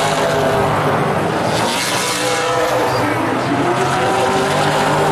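Several super late model stock cars' V8 engines running at race speed, their blended engine notes rising and falling as the cars come through the turn.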